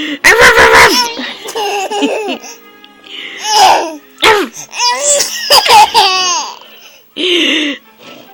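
A baby of about nine months laughing hysterically in repeated bursts of high-pitched belly laughs, set off by someone imitating a dog's bark.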